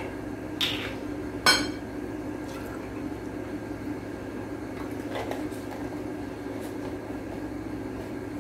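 A few scattered light clinks and knocks of kitchenware on a glass tabletop, the loudest about one and a half seconds in, as milk is measured from a carton into a small cup. A steady low hum runs under them.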